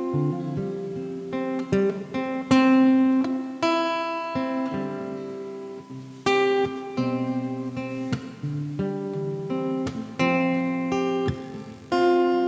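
Acoustic-electric guitar strummed in chords, each strum ringing out and fading before the next, picked up by a BM800 condenser microphone through a V8 sound card.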